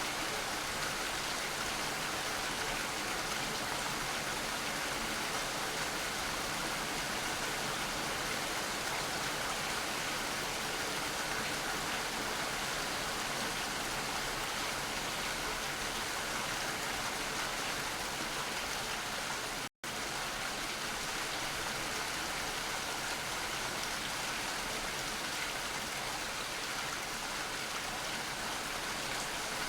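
Steady, dense rain hiss with no distinct drops standing out. Just under two-thirds of the way through it cuts out completely for a split second, then resumes unchanged.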